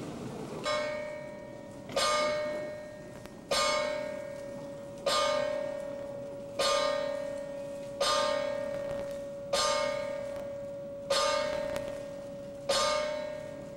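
Boxing ring bell struck slowly nine times, about once every one and a half seconds, each strike ringing on and fading before the next. This is the ten-count bell tolled for a retiring boxer.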